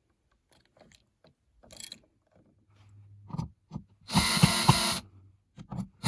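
Faint clicks, then two loud bursts of rustling, scraping noise with clicks in them, each about a second long: one about four seconds in and one at the end.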